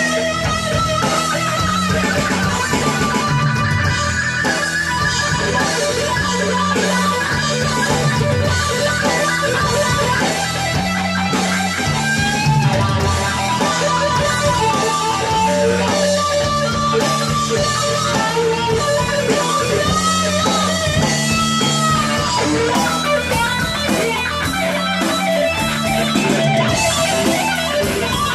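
Live rock band playing an instrumental passage: an electric guitar lead with bending notes over a repeating low riff and drums.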